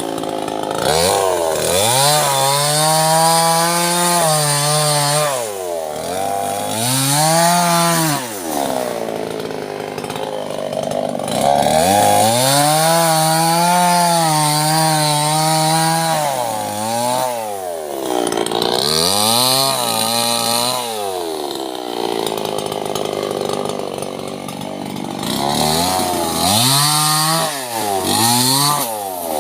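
Small two-stroke chainsaw cutting sengon wood. The engine revs up and drops back again and again, with a longer steady stretch at high speed about halfway through.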